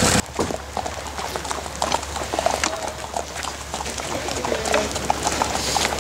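Horses' hooves clip-clopping at a walk on a dirt-and-gravel track, in uneven, overlapping hoofbeats.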